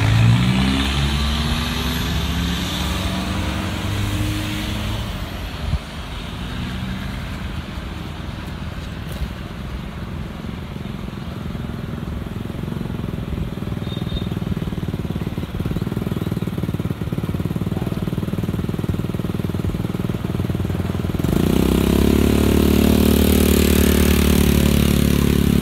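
Road traffic going by: an engine falls in pitch as it passes in the first couple of seconds, then a steady traffic hum. Near the end a louder engine comes in and keeps running.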